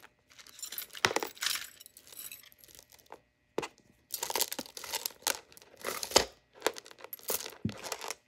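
Costume jewelry being handled by hand: irregular rustling and crinkling with several sharp clicks and clinks of metal and glass pieces.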